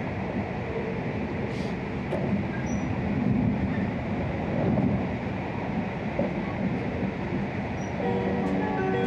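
Cabin running noise of an E6 series Shinkansen car at speed: a steady low rumble with a few faint clicks. About eight seconds in, the train's on-board announcement chime melody starts.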